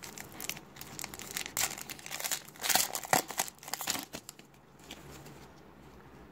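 Foil wrapper of a Topps WWE trading card pack crinkling as it is opened and the cards are pulled out. The crinkling is loudest about three seconds in and dies down to faint rustles after about four seconds.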